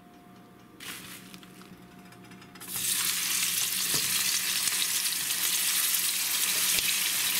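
Seasoned rib eye steak laid into a hot oiled frying pan: after a quiet start, the meat begins sizzling about a third of the way in, a loud steady hiss of frying fat.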